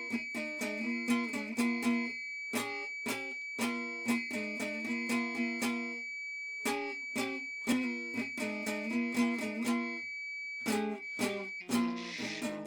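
Background music: a plucked string instrument playing quick, rhythmic picked notes over a steady high held tone, with short breaks about six and ten seconds in.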